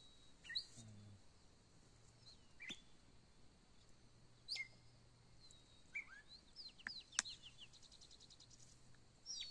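Faint bird calls: scattered chirps and short whistled glides, with a quick even trill near the end. A single sharp click about seven seconds in.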